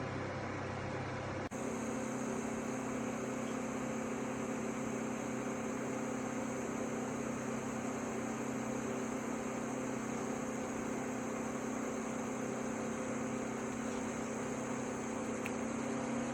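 Portable evaporative air cooler's fan motors running with a steady hum. After a brief dropout about a second and a half in, the hum carries a different, higher mix of tones with a faint high whine.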